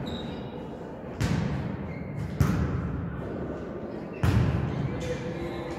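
A volleyball struck three times by players' hands during a rally, each hit a sharp smack that echoes around a large sports hall.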